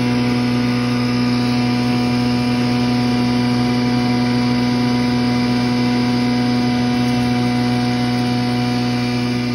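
Bhusa (wheat-straw) grinder machine running steadily while dry straw is fed into its hopper: an even, loud mechanical hum with a strong constant tone and no change in speed.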